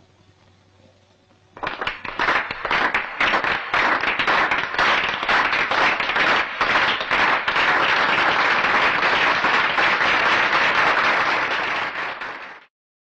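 A large crowd applauding, starting suddenly about a second and a half in and cutting off abruptly near the end.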